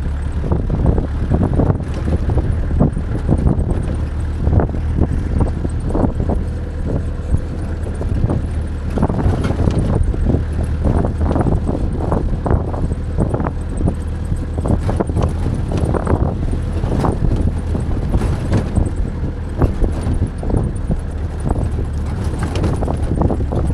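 A 4x4 vehicle driving over a rough, rocky lahar riverbed: a steady low engine drone with constant irregular rattling and knocking as the vehicle jolts over stones.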